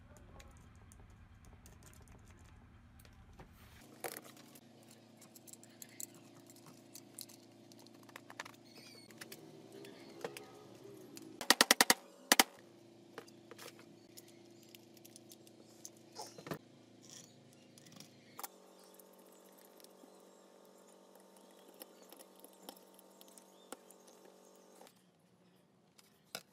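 Small clicks and knocks of angle-grinder parts being handled on a workbench, with a brief loud rapid rattle about halfway through.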